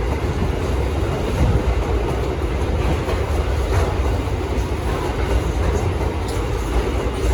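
Freight train of steel wagons rolling past at low speed, a steady rumble of wheels on the rails with a few faint clanks.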